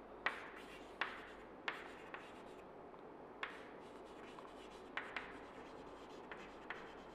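Chalk writing on a chalkboard, faint: soft scratching strokes with sharp taps of the chalk against the board every second or so.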